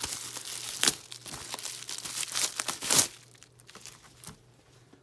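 Plastic bubble-wrap packaging crinkling as a CD is unwrapped from it, with sharp louder crackles about one second and three seconds in. After that it drops to a few faint taps.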